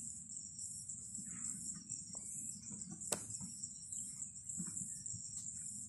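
A steady, high-pitched chorus of insects trilling in the bush, pulsing in short waves, over a low rumble. There is a single sharp click about three seconds in.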